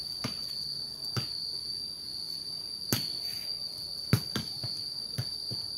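A light ball being kicked barefoot and bouncing on concrete, sharp thuds roughly once a second. A steady high-pitched insect trill runs underneath throughout.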